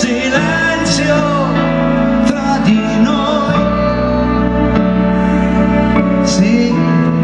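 Live band music: a slow pop ballad with sustained keyboard chords over a steady bass line, with a man singing into a microphone briefly near the start.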